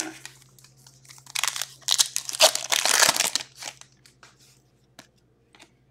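Foil wrapper of a hockey card pack crinkling as it is torn open and handled, loudest for about two seconds from a second in, followed by a few faint clicks.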